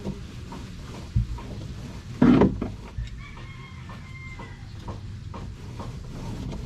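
A rooster crowing, with a dull thump just over a second in and scattered light taps and knocks.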